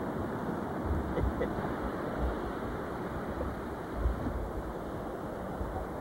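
Snowstorm wind rushing steadily, with a few low thumps of gusts buffeting the microphone.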